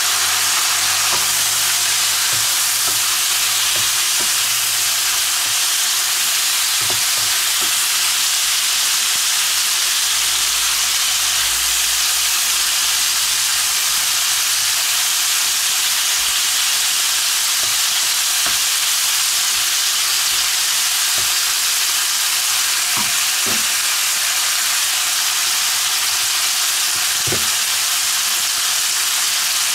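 Chicken pieces sizzling in hot oil in a wok, a steady hiss, with a few light knocks as a wooden spatula stirs them.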